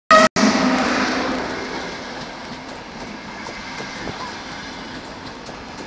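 High-speed electric train passing close along a station platform. It starts abruptly with a short pitched note, then a loud rush of wheels and air eases over about two seconds into a steady rolling hiss as the carriages go by.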